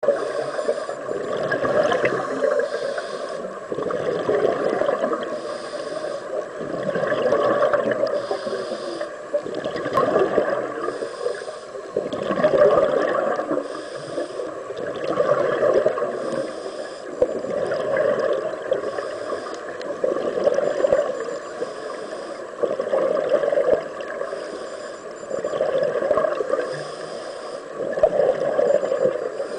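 Scuba breathing heard underwater: a diver's regulator drawing breaths and exhaled air bubbling out, in a regular cycle about every two to three seconds.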